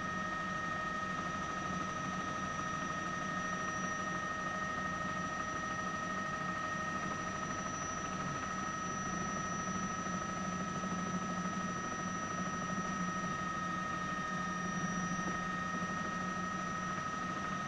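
Steady drone of a helicopter heard from aboard, with several high steady whining tones over a low hum, unchanging throughout.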